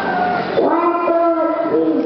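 Several young children's voices singing long held notes, starting about half a second in, with pitches sliding and overlapping.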